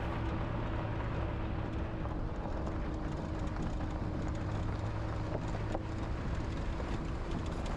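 Vehicle engine running at a steady pitch with a constant hum of tyre and road noise from driving along a gravel road.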